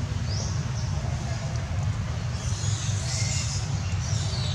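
Outdoor background noise: a steady low rumble, with faint high chirps from about two seconds in.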